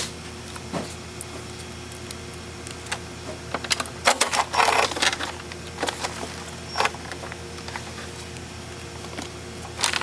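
Cordless driver run briefly on a door-handle retaining nut, a rapid clattering burst of about half a second midway. Scattered clicks and knocks of tools and hands on the sheet-metal door around it.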